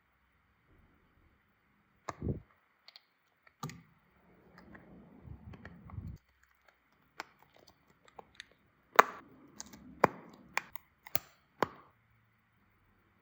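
Small clicks, taps and a soft scraping of tools and parts being handled on an iPhone 11 Pro during reassembly. There is a dull knock about two seconds in, a brief scrape a little later, then a run of sharp clicks near the end.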